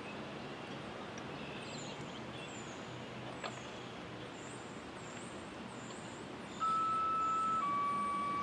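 Two-tone sequential siren activation tones: a steady higher tone that starts abruptly about two-thirds of the way in and lasts about a second, then a slightly lower steady tone that holds on. Before them, only faint outdoor background with a bird chirping repeatedly.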